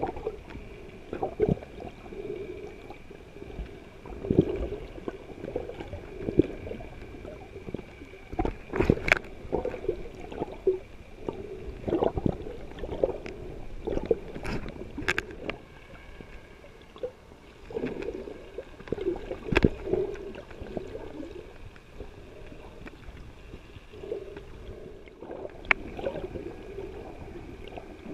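Underwater water noise heard through a submerged action camera: muffled sloshing and gurgling from the snorkeler's movement, with irregular sharp clicks and knocks and a faint steady whine underneath.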